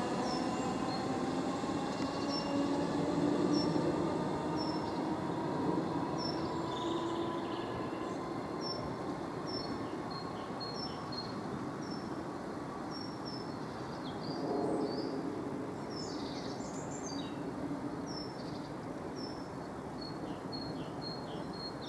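Class 313 electric multiple unit pulling away, its traction motors whining in several tones that rise slowly in pitch and fade out over the first eight seconds as it draws off. Birds chirp repeatedly throughout, with a brief swell of rumble about two-thirds of the way in.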